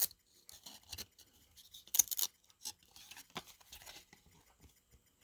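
Trading cards being handled, with soft rustling and light clicks as cards are slid and turned over. A sharp click comes at the start and a quick run of crisp snaps about two seconds in.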